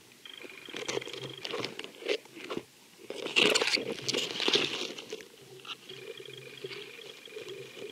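Irregular crackling, scraping and knocking from a waterproof camera's body as it swings on a rope underwater, with a louder scraping stretch a little before the middle. The sound is muffled by the water.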